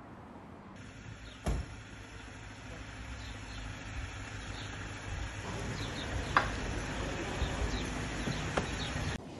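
Outdoor street ambience: a steady hiss with a low rumble, broken by a few sharp knocks, one about a second and a half in and the loudest about six seconds in. It starts just under a second in and cuts off abruptly near the end.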